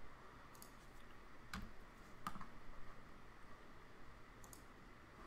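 A few isolated clicks at a computer, about four in all, the two loudest about a second and a half and two and a half seconds in, over a low room hum.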